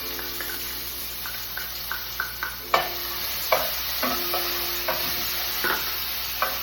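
Garlic sizzling in hot oil in a frying pan, with a utensil scraping and clicking against the pan as it is stirred; the strongest knocks come about three seconds in.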